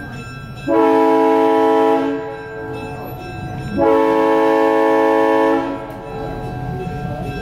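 Two long blasts of a locomotive's multi-note warning signal, sounding a steady chord; the first starts about a second in, the second is slightly longer. A low rumble runs under it, growing toward the end as the train nears.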